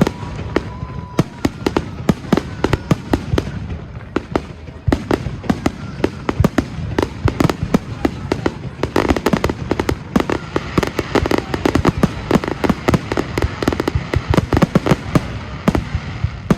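Fireworks display: a rapid, continuous barrage of bangs and crackles, many a second, heavier from about nine seconds in.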